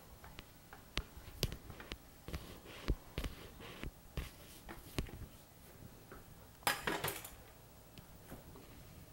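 Light clicks and knocks of a stainless steel rolling pin and other tools being handled on a silicone work mat, with a brief louder rush of noise about seven seconds in.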